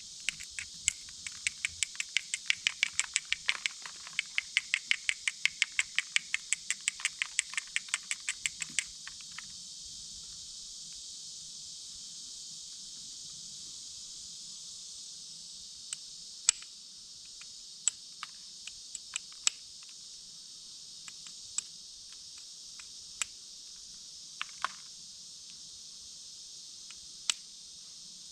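Knapping bottle glass: a quick run of light, sharp clicks, about five a second, for the first third, then scattered single sharp ticks as flakes are worked off the glass. A steady high insect drone underneath.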